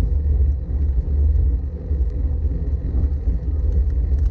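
Wind buffeting the microphone on a moving road bike: a loud, steady low rumble that surges and dips.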